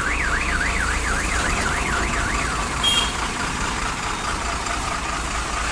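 Electronic vehicle alarm siren warbling up and down about three times a second, cutting off about two and a half seconds in, over a steady low hum.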